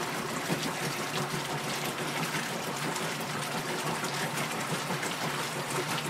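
Whirlpool direct-drive top-load washer agitating a tub of water: steady churning and sloshing of the water with a low hum underneath.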